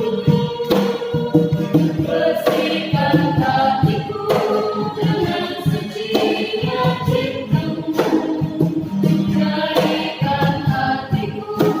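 A church youth choir singing, with a sharp beat struck about every two seconds.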